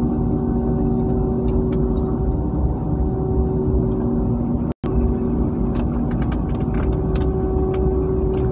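Airbus A320-family airliner's jet engines running steadily while the plane taxis, heard from inside the cabin as an even rush with a constant droning hum. Light clicks and rattles come through in the second half, and the sound breaks off for an instant just past halfway.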